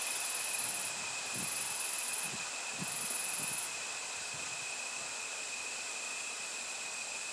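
Insects singing: three high-pitched buzzing trills of about a second each with short gaps, which stop about four seconds in, over a steady thin high drone.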